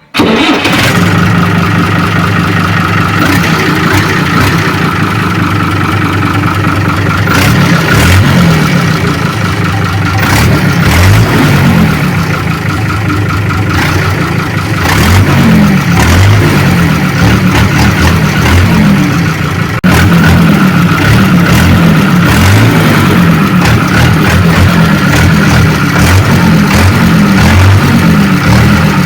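Fiat 880 DT5 tractor's diesel engine running: steady at first, then revved up and down over and over through the middle, and steady again after an abrupt cut about two-thirds of the way through.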